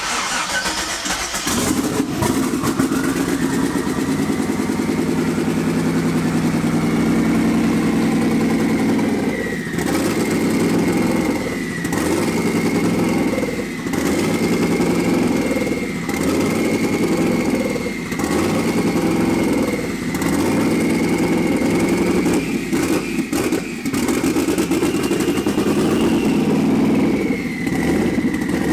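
Twin-turbo Fox-body Mustang's engine with a big camshaft firing up and running loud and uneven, its loudness dipping briefly about every two seconds. Later in the video it is described as sounding snotty, and the owner assumes it is grossly overfueling.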